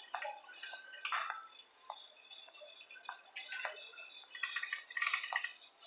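Wire shopping cart rattling and clicking as it is pushed along a store floor, with scattered light clatter over faint store background noise.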